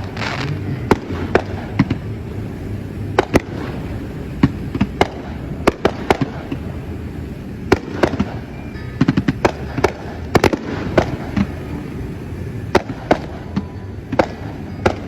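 Fireworks display: irregular sharp bangs and pops from bursting shells, with a dense run of quick crackling pops about eight to eleven seconds in.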